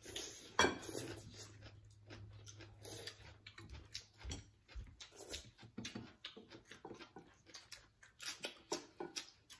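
Close-up eating sounds: rice-vermicelli noodles being slurped and chewed, a run of many short clicks and smacks, the loudest about half a second in.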